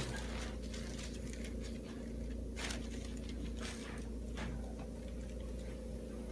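Steady low hum in the room, with a few faint soft clicks or rustles about two and a half, three and a half and four and a half seconds in.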